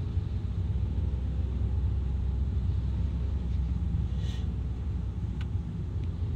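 Steady low rumble of a car's engine and tyres on the road, heard from inside the cabin while driving. A brief hiss comes about four seconds in.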